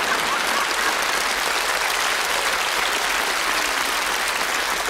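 Theatre audience applauding, a steady dense clapping.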